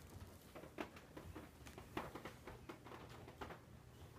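Faint, irregular soft taps and rustles, several a second, from an Exotic Shorthair and a Persian cat pawing and scuffling over a wand toy on a tile floor.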